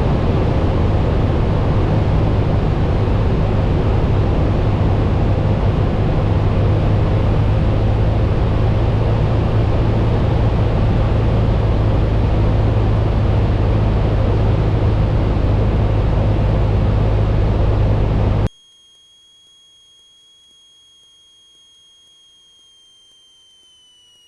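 Cessna 172 engine and propeller droning steadily as cabin noise. About eighteen seconds in it cuts off suddenly, leaving a faint steady high-pitched electronic whine that sags slightly in pitch near the end.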